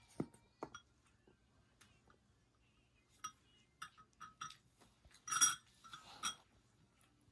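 Metal spoon clinking against a glass bowl: a run of short, light ringing clinks in the second half, the loudest about five and a half seconds in.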